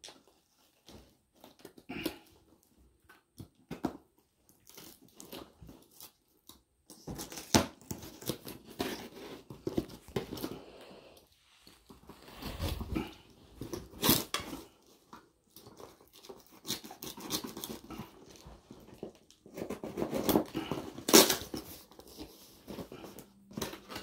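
Folding pocket knife slicing through duct tape and cardboard on a parcel box, in irregular scratchy cutting strokes with tearing of cardboard. The busiest stretches are about a third of the way in and again near the end.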